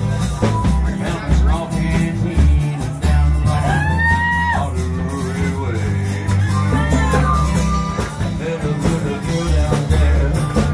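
Live band playing a rock song: singing over acoustic guitars and bass guitar.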